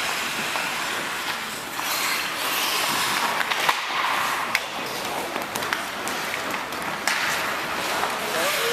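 Ice-hockey skate blades scraping across the ice, with scattered sharp clicks of sticks and puck, over a steady hiss of rink noise.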